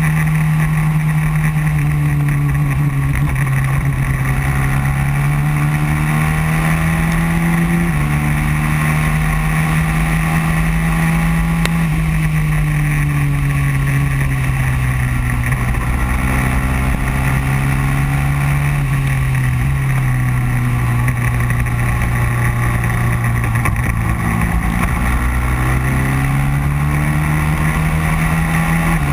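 Racing kart engine heard on board at speed, running continuously with its pitch sliding down and climbing again several times, with sudden jumps in pitch about eight and twelve seconds in.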